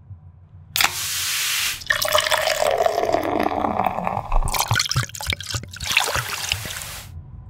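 A can of Guinness Draught stout cracked open with a short hiss about a second in, then the stout poured into a glass, the pouring tone sliding down as it runs, followed by scattered drips and fizzing clicks.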